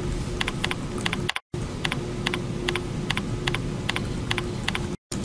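Typing on a computer keyboard: a steady run of single keystrokes, about three or four a second, as a user name and password are entered at a log-on prompt. The audio cuts out to silence twice, briefly.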